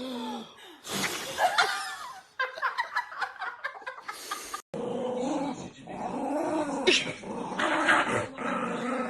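A dog or dogs growling and barking in irregular bouts, with a brief break in the sound about four and a half seconds in.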